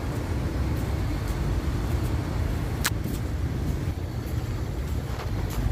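Steady city traffic noise from cars on a wide avenue, with a sharp click about three seconds in.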